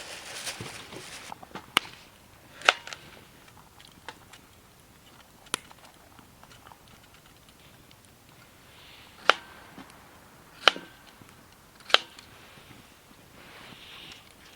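Wood fire burning with occasional sharp pops from the firewood, about six of them spread out, over a soft hiss at the start.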